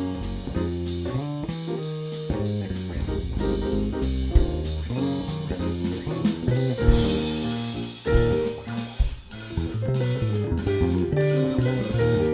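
Jazz played on guitar with bass and drum kit, the guitar carrying the line over a walking bass and cymbals keeping a steady beat.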